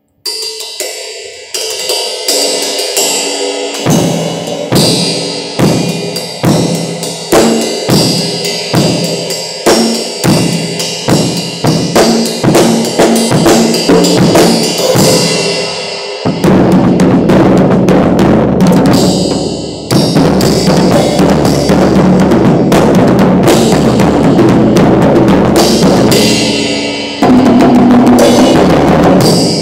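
Acoustic drum kit played loudly: kick drum, snare and cymbals in a steady beat. About sixteen seconds in it becomes dense, continuous playing with the cymbals ringing together.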